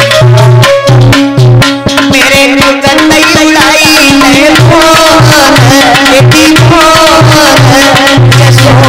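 Devotional bhajan music: hand drums beat a quick, steady rhythm under a low tone that drops in and out, and a wavering melody line comes in about three seconds in.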